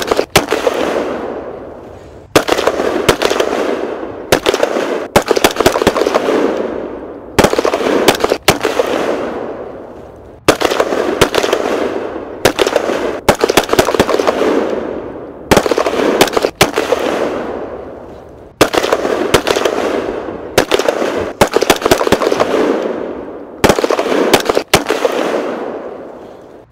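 Battle sound effects of explosions and gunfire: a sharp bang every two to three seconds, some in quick pairs, each trailing off over a couple of seconds into crackling. The steady repeating pattern is typical of a looped effects track rather than live sound.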